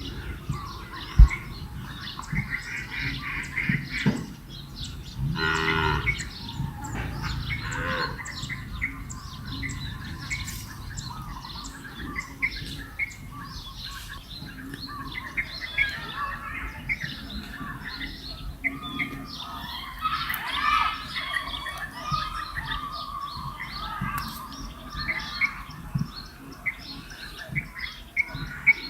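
Many birds chirping and squawking, with a louder, drawn-out call with several harmonics about five seconds in.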